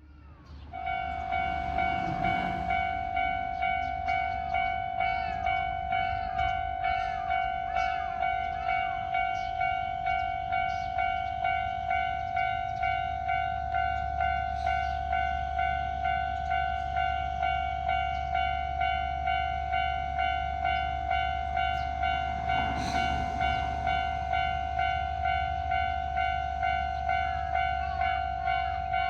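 Japanese level-crossing alarm ringing: an electronic bell striking in a steady, rapid repeat, with a train running through the crossing beneath it.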